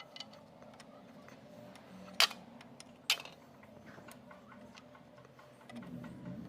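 Two sharp knocks, the second about a second after the first, over faint irregular ticking and a low hum that grows louder near the end.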